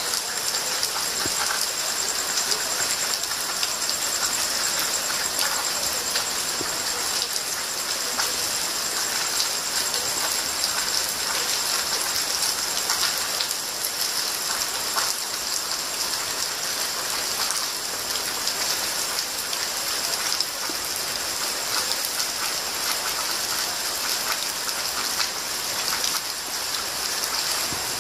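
Steady rain falling and pattering on surfaces, with scattered sharper drips.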